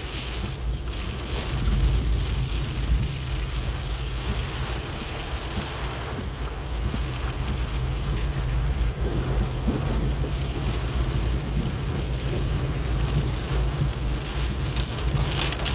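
Steady rain falling, a continuous hiss, over a low rumble that swells briefly near the end.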